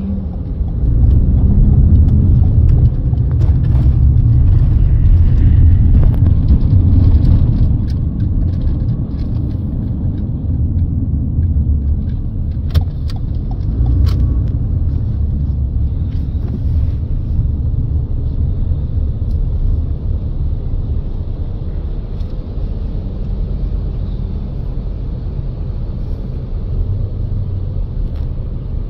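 Low, steady rumble of road and engine noise heard inside a car's cabin in slow traffic. It is loudest for the first several seconds, then settles lower, with a couple of sharp clicks about halfway through.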